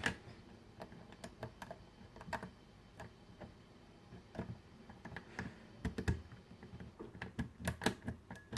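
Irregular small metallic clicks and ticks of a lock pick and tension wrench working in the keyway of a Squire SAL/40 padlock, a few at a time with a denser run near the end. The pins are all set and the core is dead, so the pick meets no spring tension.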